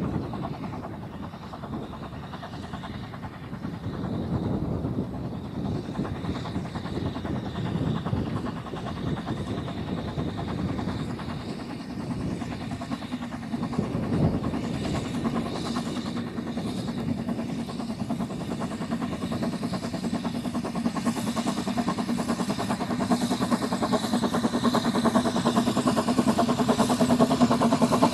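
Narrow-gauge steam tank locomotive hauling a train of coaches, its exhaust beats working steadily and growing louder as it approaches.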